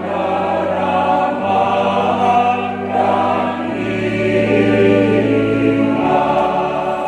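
Church choir singing a hymn over held keyboard chords. The bass note changes about two-thirds of the way through and again near the end.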